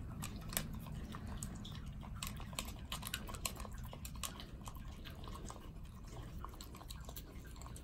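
Miniature dachshund eating kibble from a stainless steel bowl: irregular small clicks and crunches of chewing and of food knocking against the metal bowl.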